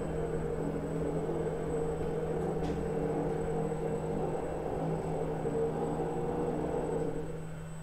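Robotic patient couch of a particle-therapy treatment room moving under motor power: a steady hum of several held tones that dies down just before the end.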